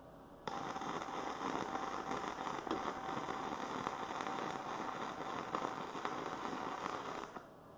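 Gasless flux-core wire (MIG) welder arc crackling and spitting steadily as one weld bead is run on steel. It starts suddenly about half a second in and stops about a second before the end.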